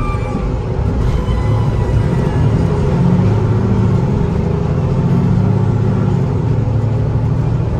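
Diesel engine of a Mercedes-Benz Citaro G2 articulated bus pulling hard under kickdown, heard from inside the passenger cabin. Its low hum grows louder over the first two seconds, holds steady, then eases slightly just before the end.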